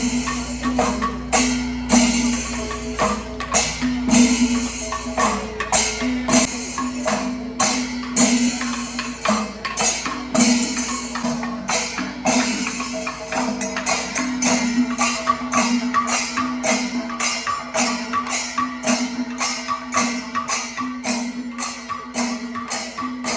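Percussion-led music: sharp drum strokes in a steady beat that quickens about halfway through, over a sustained held tone.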